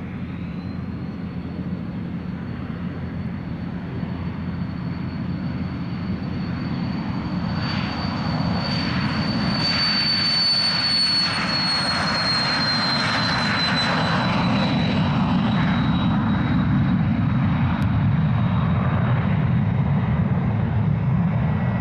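Embraer Phenom 100's twin Pratt & Whitney Canada PW617F turbofans at takeoff power: a rushing roar that grows steadily louder as the jet rolls past, with a high turbine whine that drops in pitch as it passes, about halfway through.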